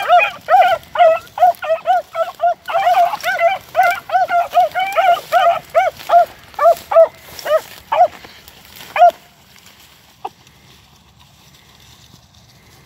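A brace of rabbit hounds baying on a rabbit's trail: quick, repeated high barks, about three a second, that stop about nine seconds in.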